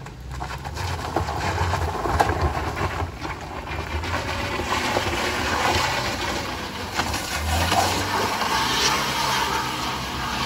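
Small front-wheel-drive Daihatsu MPV's engine revving hard under load as it claws up a steep slope of loose, wet gravel, with its front tyres spinning and scrabbling on the surface.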